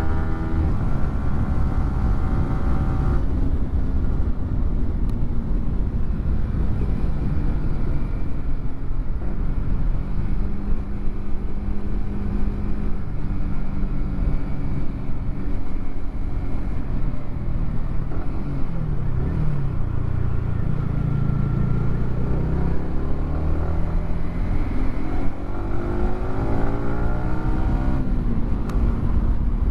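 Yamaha R15 M's single-cylinder 155 cc engine through an aftermarket WRX GP3 exhaust, under way with heavy wind rumble. The engine note holds fairly steady, then climbs in the last few seconds and drops back near the end.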